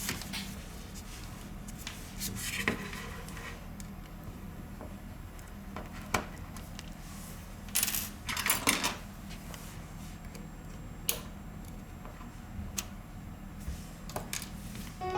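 Small hard objects clicking, tapping and scraping on a work surface, scattered and irregular, with two busier clusters about two seconds in and about eight seconds in, over a faint steady hum.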